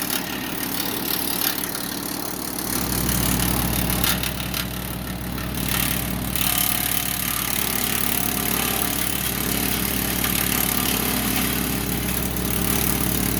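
Wood chipper's engine running steadily, its low drone growing stronger about three seconds in.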